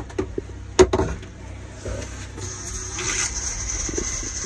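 A single sharp knock about a second in, then water starts running from a small sink faucet into the basin about two and a half seconds in and keeps running steadily.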